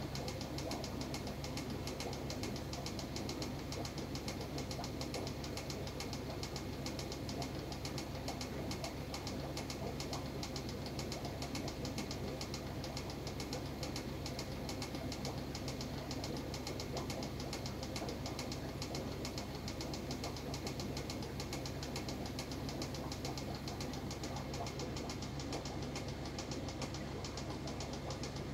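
Aquarium equipment running: a steady low hum under a rapid, even patter of ticks.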